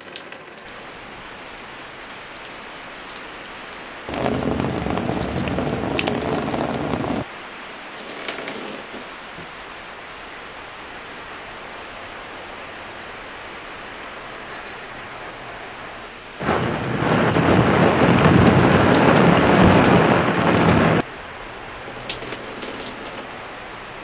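Steady rain falling, with two much louder, heavier stretches, one about four seconds in and one from about sixteen to twenty-one seconds, each starting and stopping abruptly.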